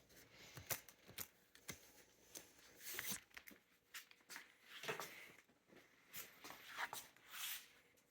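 Rhodesian Ridgeback puppies eating soft food from a dish, heard as faint, scattered smacks, clicks and rustles.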